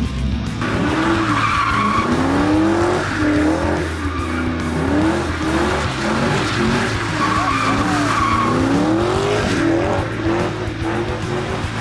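Cadillac CTS sedan doing donuts: the engine revs up and down over and over while the spinning tyres squeal on the asphalt.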